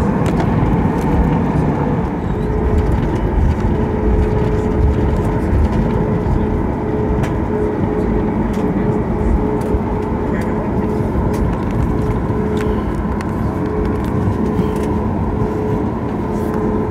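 Cabin noise of a Boeing 737 MAX 8 taxiing on its CFM LEAP-1B engines at low thrust: a steady rumble with a steady hum, and a few small clicks and rattles.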